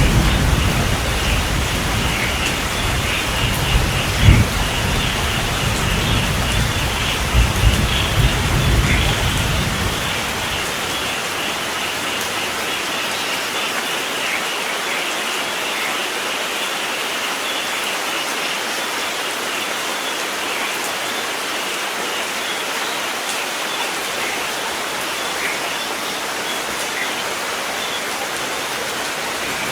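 Steady rain falling, with rolling thunder rumbling through roughly the first ten seconds, loudest about four seconds in, then dying away to leave the rain alone.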